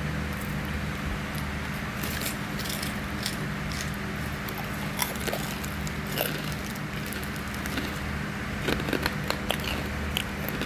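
Crunchy snack being chewed: scattered crisp crackles and crunches, coming thicker near the end, over a steady low hum.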